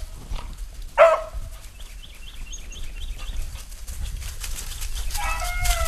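Beagle baying while trailing a rabbit: one sharp bay about a second in, then a longer drawn-out bay near the end.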